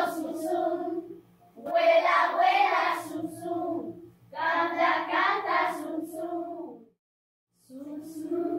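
Children singing a song together in phrases of about two seconds over a steady low beat. The song cuts out completely for under a second near the end, then starts again.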